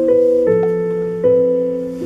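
Background music: a gentle piano-like keyboard tune, with chords struck twice and left to fade.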